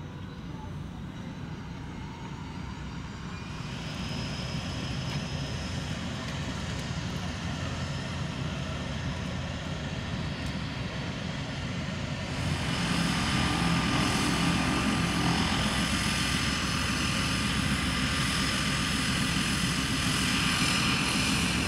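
A motor engine running steadily, with a few steady whining tones over its drone. It grows louder about four seconds in and again, more sharply, about twelve seconds in.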